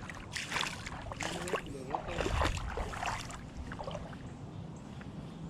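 Creek water sloshing and splashing in quick, irregular strokes, settling to a faint steady wash about three and a half seconds in.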